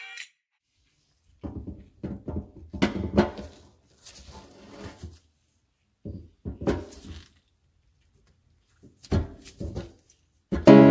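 Irregular knocks and clunks in a few short clusters, handling sounds in the cabinet under a kitchen sink. Loud music starts just before the end.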